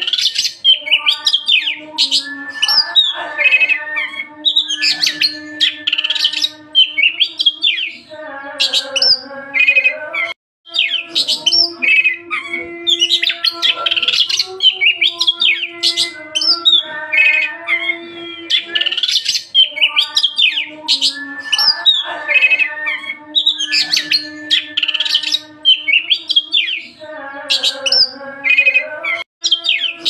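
Oriental magpie-robin (kacer) singing without pause: a continuous run of loud, varied whistles and chattering phrases over a steady low hum.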